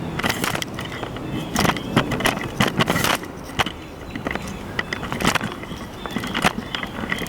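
A string of irregular clicks, knocks and rattles from things being handled and shifted around inside a car, over a low background hiss.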